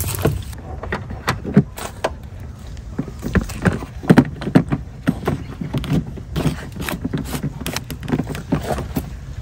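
Irregular light knocks, clicks and rattles of a wiring harness being pushed down through the plastic trim channel of a Toyota Prado's centre pillar and door sill.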